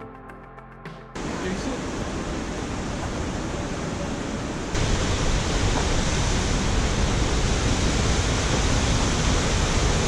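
Music ends about a second in, giving way to the steady rush of a large waterfall, Sahalie Falls on the McKenzie River. The water noise jumps suddenly louder a little before halfway through.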